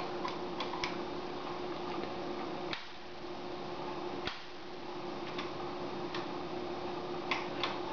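Tektronix 466 oscilloscope front-panel knobs and switches being turned and pressed: about nine sharp, scattered clicks over a steady hum.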